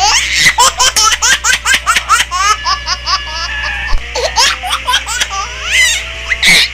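A baby laughing in quick repeated bursts of high-pitched giggles, with steady tones sounding underneath in the second half.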